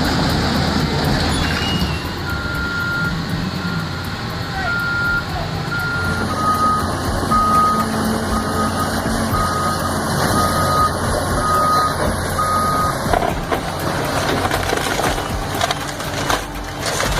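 Backup alarm beeping steadily at about one beep a second over a running heavy machine engine. The beep drops slightly in pitch about six seconds in, and the beeping stops about thirteen seconds in.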